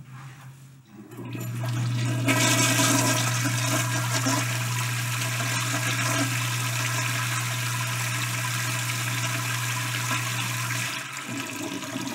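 Five-gallon high-volume toilet flushing: a long, loud rush of water over a steady low hum that builds about a second in, runs for roughly nine seconds, and dies down near the end.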